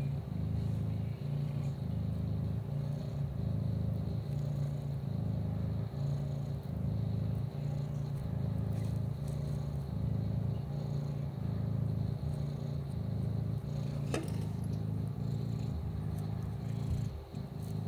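A kitten purring close to the microphone: a steady low rumble that swells and eases about once a second with its breathing. One sharp click about fourteen seconds in.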